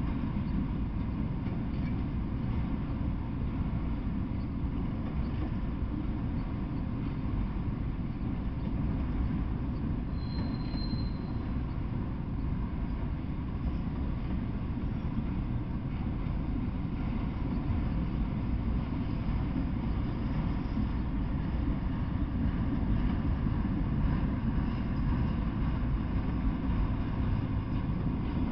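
Freight train of enclosed autorack cars rolling past steadily: a continuous low rumble of steel wheels on the rails, with one brief high squeal about ten seconds in.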